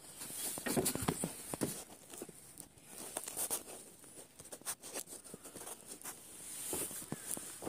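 Irregular crunching footsteps over loose soil and broken concrete rubble, with small scrapes between the steps.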